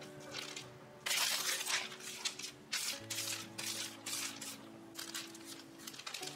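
Parchment paper rustling and crinkling in several short bursts as a sheet is laid over dough and smoothed flat by hand, loudest about a second in, over soft background music.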